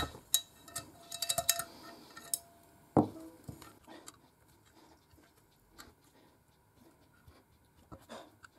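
Small metal parts clinking and clicking as the top fittings of a new shock absorber are handled and fitted by hand, with a sharper knock about three seconds in. After that, only a few light ticks.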